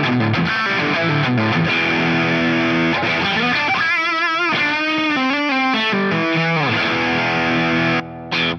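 Overdriven Stratocaster-style electric guitar played through a Baja Electronics JFET preamp pedal: a lead line of single notes, a held note with wide vibrato about four seconds in, then string bends. The playing breaks off near the end with one last short note.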